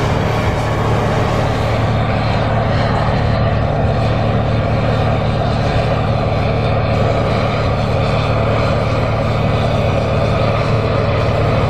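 John Deere 8R tractor's six-cylinder diesel engine running steadily under load while pulling a tillage implement through the ground: a continuous, even drone.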